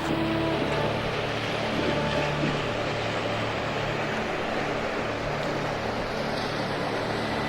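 A motorboat engine running steadily, a constant low hum over a wash of noise.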